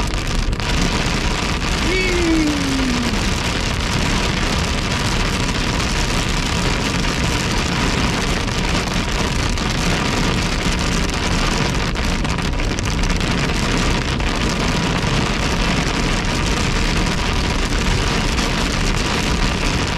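Heavy rain hitting a moving car's windshield and roof, heard from inside the car as a steady, even hiss. A short falling tone sounds about two seconds in.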